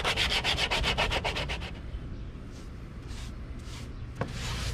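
Wooden edges being sanded by hand: quick, even back-and-forth strokes of sandpaper, about six a second, that stop a little under two seconds in. A few slower, fainter strokes follow, and a single knock near the end.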